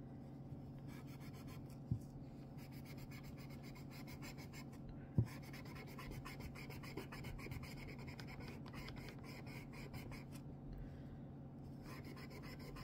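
Steel wool with a dab of polish rubbed quickly back and forth on a straight razor's steel blade: a faint, fast scratchy rubbing that pauses twice, with a couple of light taps.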